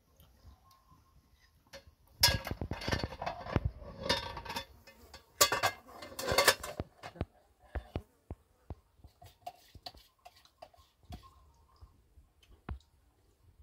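Clattering and clinking of hard objects being handled, in two busy bursts about two and five seconds in, followed by scattered single knocks.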